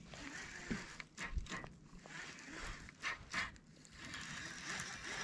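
Scattered light clicks and knocks from handling a baitcasting rod and reel in a kayak, over a faint hiss that grows steadier near the end.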